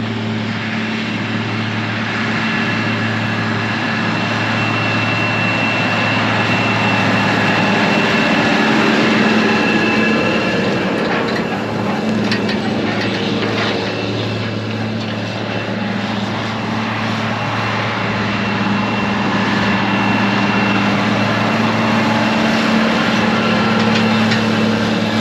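John Deere four-wheel-drive articulated tractor's diesel engine running steadily under load, pulling a disc tillage implement through the soil; it grows louder as it passes close, fades a little, then swells again near the end. A few clanks and rattles from the implement come around the middle.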